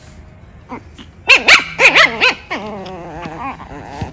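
Seven-week-old Pomeranian puppies play-fighting: about five short, high yips in quick succession after about a second, then one long, wavering puppy growl.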